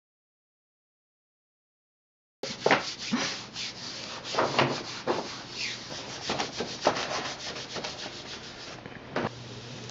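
A hand rubbing and smoothing self-adhesive wallpaper flat against a wall, a run of quick, uneven swishing strokes. The first two seconds or so are dead silence before the rubbing starts.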